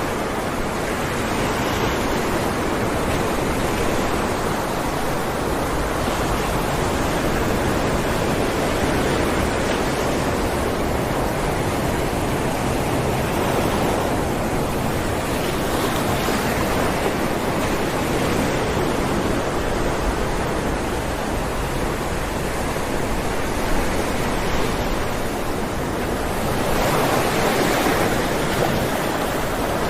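Ocean waves breaking on rocks, a continuous wash of surf that swells and falls back every few seconds, with a stronger surge near the end.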